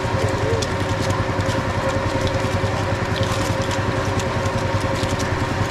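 A small engine running steadily at an even speed, with faint scattered clicks over it.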